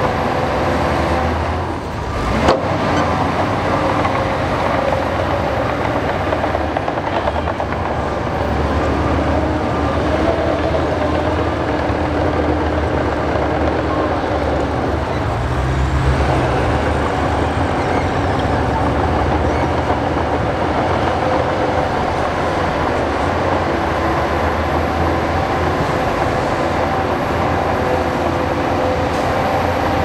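Heavy diesel earthmoving machinery running steadily under work, its engine note holding with small shifts. There is a sharp knock about two and a half seconds in, and the engine note deepens briefly around the middle.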